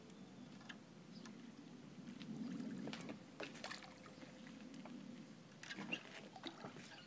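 Faint water lapping with a low rumble that swells about two seconds in, and scattered light clicks and small splashes.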